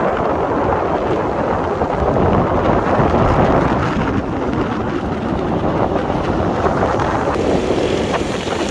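Loud, steady rumbling wind noise on the microphone.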